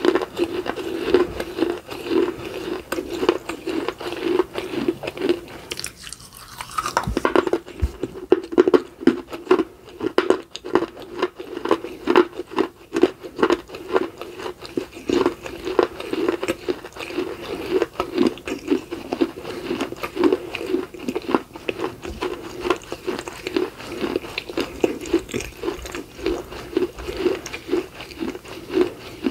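Crunching and chewing of a piece of baked clay pot close to the microphone: gritty crackles over a steady chewing rhythm of about two chews a second. A short lull about six seconds in, then the loudest crunching for the next few seconds.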